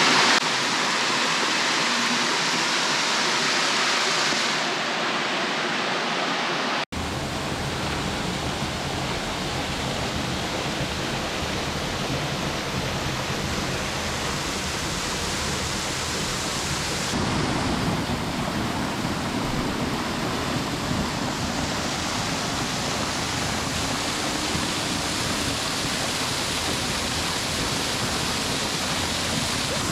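Waterfall running full after heavy rain: a steady rush of falling water, changing abruptly in tone about a third of the way in and again past the middle.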